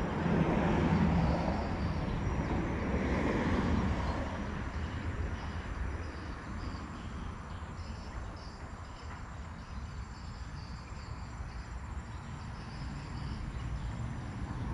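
Outdoor ambience: a vehicle passes and fades away over the first few seconds, leaving a steady low rumble, while insects chirp in short repeated pulses.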